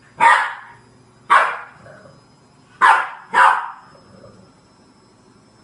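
French bulldog puppy barking: four short, sharp barks, the last two in quick succession. They are wary barks at a green washing basket the puppy is scared of.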